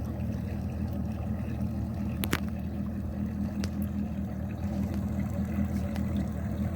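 Boat engine running steadily at an even pitch, with a sharp click about two seconds in.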